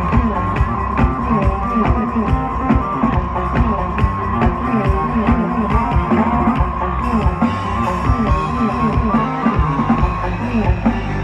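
Loud live electronic music with a steady, driving drum beat, played by a band through a concert PA and picked up from within the crowd.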